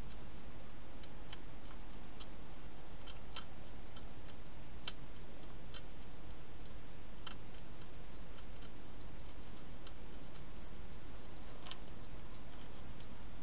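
Hedgehog eating dry food inside a plastic box: scattered sharp crunching clicks at irregular intervals over a steady hiss.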